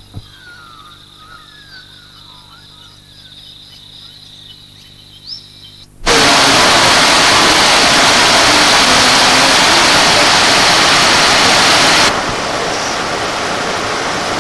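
Birds chirping over an insect's steady high trill in bushland. After about six seconds it cuts suddenly to the loud, steady rush of a waterfall, which drops a little near the end to the flow of a creek.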